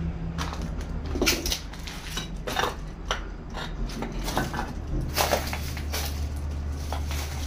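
Footsteps crunching and scraping over rubble and dry debris, as irregular crunches and clinks, over a steady low hum.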